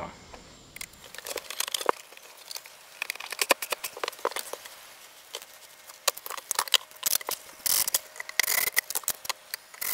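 Scattered small clicks, taps and rustles of hands handling screws and a cordless drill-driver, with a couple of longer rustles near the end.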